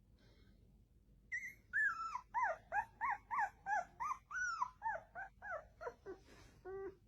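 A dog whining and yipping in a rapid string of short, high, rising-and-falling calls, about three a second. Near the end the calls drop lower and come quicker.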